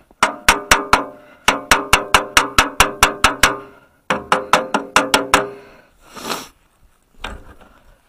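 Pliers rapping on a stuck battery cable terminal: sharp metal-on-metal clinks, each ringing briefly, in three quick runs of about five strikes a second. The knocking is meant to break the terminal loose. A short rustle and a single thump follow near the end.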